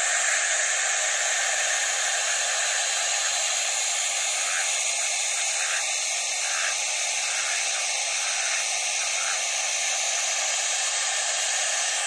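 Water running hard into a livestock water trough, a steady hiss.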